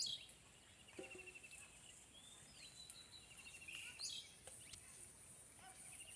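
Faint birds chirping, with quick trills and short rising calls, over a steady high-pitched whine and a couple of soft knocks.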